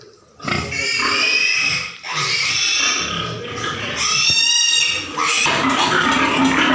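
Pigs squealing: two long, high squeals, the first about half a second in and the second about four seconds in, with rougher, noisier pig sounds between and after them.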